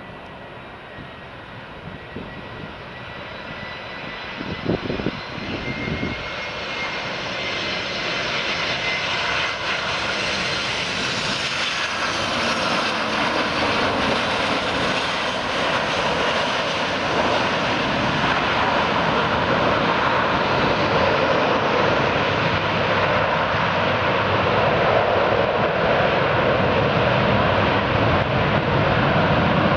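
Airbus A320 jet airliner landing. A thin, high engine whine on approach gives way to a broad jet roar that builds steadily through touchdown and rollout and is loudest near the end. A few brief low thumps come about five seconds in.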